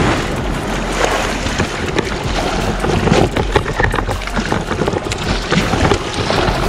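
Double-bladed paddle dipping and splashing stroke after stroke as a sit-on-top fishing kayak is paddled out through shallow surf, with water sloshing against the hull. Wind is rumbling on the microphone.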